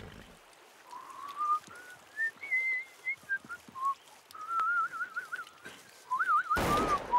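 Someone whistling a wandering tune in a single clear tone, with quick warbling trills in the middle and again near the end. A short, loud burst of noise cuts in just before the end.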